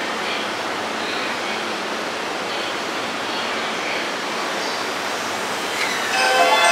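Steady, even rushing noise of a train running at the station. A bright chiming melody starts near the end.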